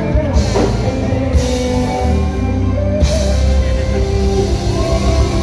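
Loud band music: a drum kit with cymbal crashes over a heavy bass line and guitar.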